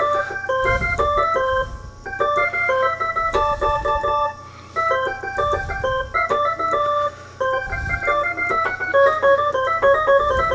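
Instrumental break: an electronic keyboard with an organ sound playing a quick run of short notes, over a few deep bass hits, with brief pauses between phrases.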